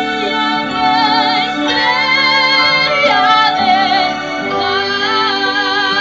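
A woman singing sustained notes with vibrato into a microphone over backing music, amplified through stage loudspeakers.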